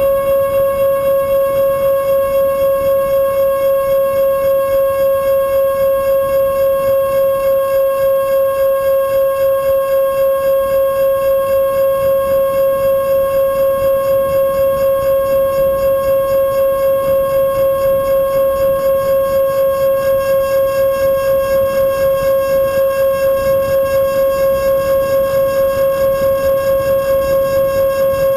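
Twin 70 mm electric ducted fans of an RC model plane in flight, heard from on board: a loud, steady high-pitched whine holding one pitch, with a fast regular pulsing.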